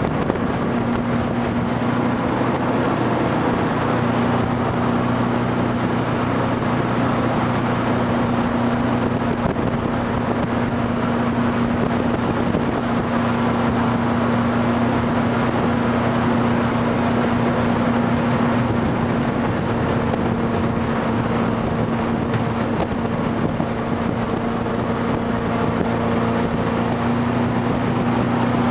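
Jet boat engine running steadily under way, heard from on board: a constant drone with an even rushing noise beneath it.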